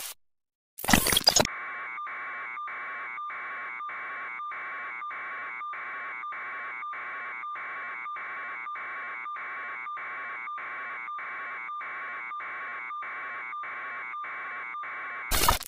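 Electronic alarm beeping in a steady rhythm of about two beeps a second. It comes between short bursts of glitchy static, near the start and again near the end.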